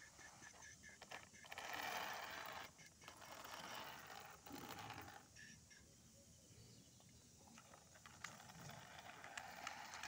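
Faint scraping and rustling of a plastic toy jeep being pushed through loose sand by hand, coming in a few short bursts.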